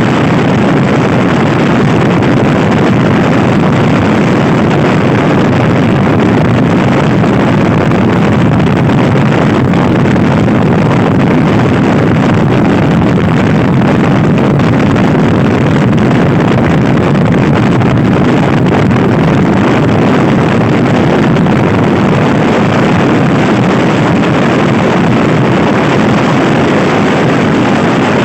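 Loud, steady wind noise buffeting the microphone on a Honda Scoopy-i scooter ridden at speed, with no clear engine note standing out.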